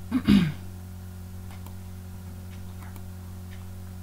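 A short vocal sound right at the start, then a few faint computer mouse clicks over a steady electrical hum.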